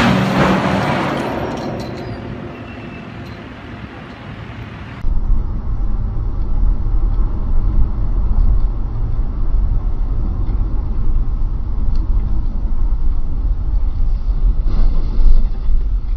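A large steel pipe crashes to the ground off a flatbed trailer, a heavy impact that fades away over about four seconds. Then comes a car's steady low road rumble heard from inside the cabin on a highway.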